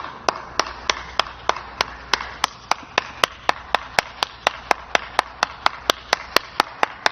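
A steady, evenly spaced series of sharp clicks, about three a second.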